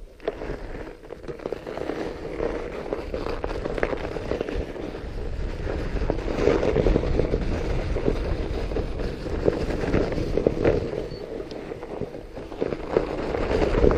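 Fat bike's wide 4.5-inch knobby tires rolling over crusty frozen snow, a continuous crunching crackle that grows louder about halfway through, over a low rumble of wind on the microphone.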